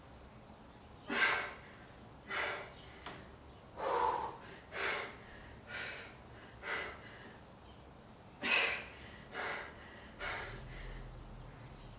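A woman's short, forceful breaths, about nine of them spaced roughly a second apart, timed with her dumbbell reps: breathing hard from exertion.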